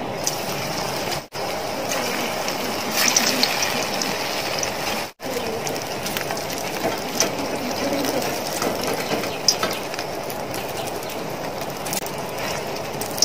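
Samosas deep-frying in hot oil in a steel pot: a steady sizzle with fine crackling and an occasional sharper pop. The sizzle breaks off for a moment twice.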